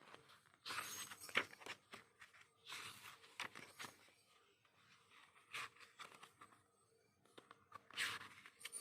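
Packaging being handled and unwrapped: paper and plastic rustling, crinkling and tearing in several short bursts, around one, three, five and a half and eight seconds in.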